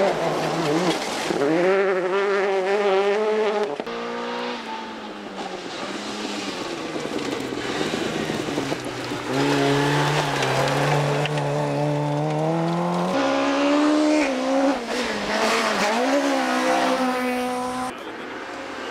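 Rally car engines at high revs on a gravel stage. First a hatchback revs up hard out of a hairpin. After a break, an MG ZR rally car approaches with its engine held high and steady, drops revs suddenly, then revs up and down again as it slides through the bend.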